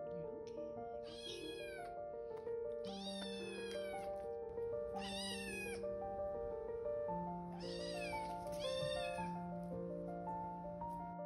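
A cat meowing about five times, short high-pitched meows that fall in pitch, over soft piano music.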